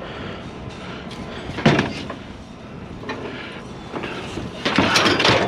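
Metal bed frame being handled, clanking and rattling: one sharp knock about a second and a half in, then a run of clattering knocks near the end.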